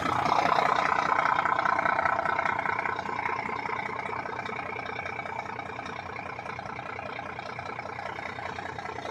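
Scania 4-series truck's 380 PDE diesel engine running, louder for the first few seconds and then settling to a steady, lower running sound.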